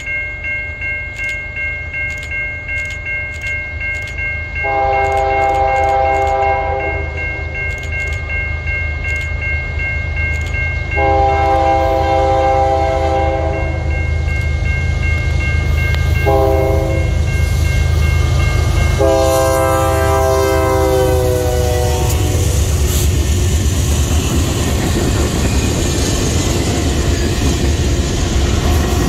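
Freight train's diesel locomotive horn sounding the grade-crossing signal, long, long, short, long, the last note dropping in pitch as the locomotives pass, over a steady diesel rumble. Then the rumble and clatter of loaded freight cars rolling past close by.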